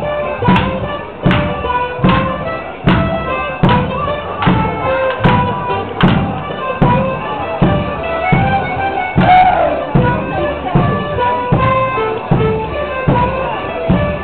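Border Morris dance tune played on reedy instruments with a steady, sharp beat about every three-quarters of a second.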